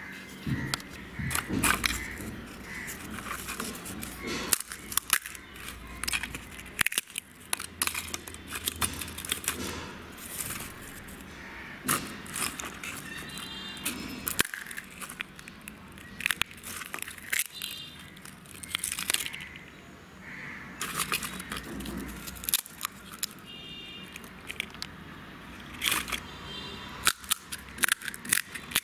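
Crisp, hollow fried puri (fuchka) shells crackling and clicking as fingers handle them and press on one, in many sharp irregular cracks.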